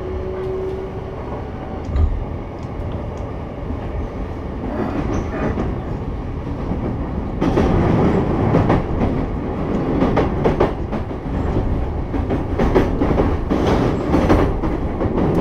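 Sotetsu 11000 series electric train heard from inside the car on its approach into a terminal station: a steady running rumble with one thump about two seconds in, then wheels clattering over rail joints and points, louder and busier from about halfway through.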